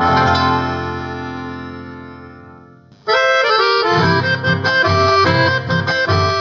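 Paraguayan folk band of harp, accordion and bass. One song's final chord rings and fades away, then about three seconds in the next song starts abruptly with an accordion melody over bass and plucked strings.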